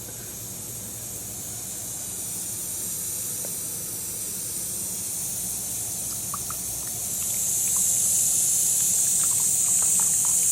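Water heating in a coffee alarm clock's built-in kettle: a steady hiss that grows louder about seven seconds in, with faint ticks and pops as the water comes up to the boil.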